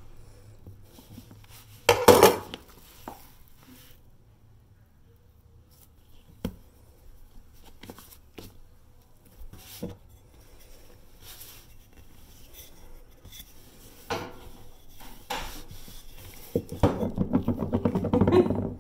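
Knife and hands working soft dough on a silicone baking mat on a wooden counter: one clatter about two seconds in, scattered soft knocks, then a busier stretch of rubbing and handling near the end.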